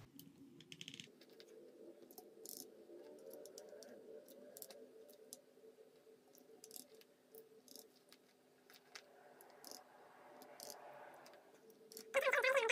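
Faint, scattered clicks and light plastic taps of keycaps being pushed onto mechanical keyboard switches, over a low steady hum. Near the end a louder wavering pitched call begins.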